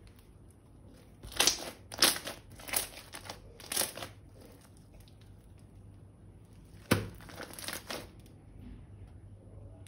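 Thin plastic crinkling in a handful of short bursts, with a sharp click about seven seconds in followed by more crinkling.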